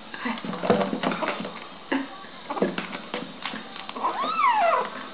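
Young kitten meowing once about four seconds in: one long call that rises and then falls in pitch. Before it, a few short knocks and rustles.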